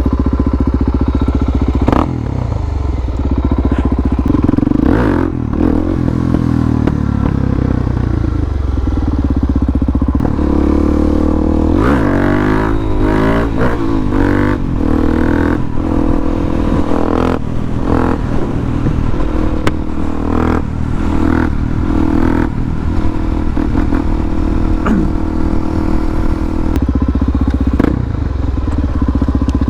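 Motorcycle engine and exhaust running under way, with wind noise on the mic; the engine pitch rises and falls around the middle as the revs change.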